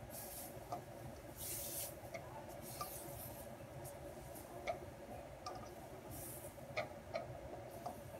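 Spatula tossing mushrooms and vegetables in a wok: faint scraping with a few short hissy sweeps and scattered light clicks of the spatula against the pan.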